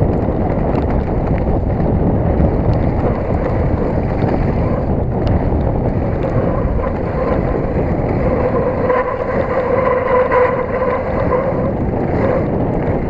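Mountain bike descending at speed: wind rushing over the microphone and tyres rolling and rattling over rough ground, a steady loud rumble. About two-thirds of the way in, a steady humming tone comes in on top.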